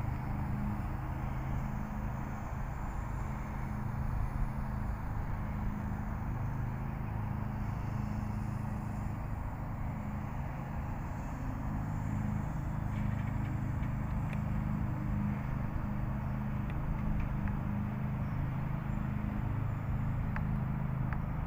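Car engine running steadily at low speed, a low even hum.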